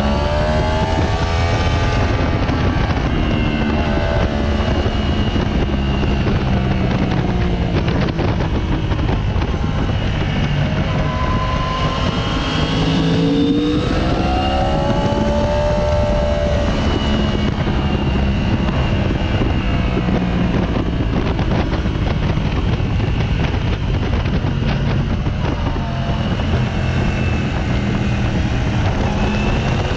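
Sport motorcycle's inline-four engine at speed on a race track, its revs repeatedly rising and falling, with heavy wind rush over the onboard microphone.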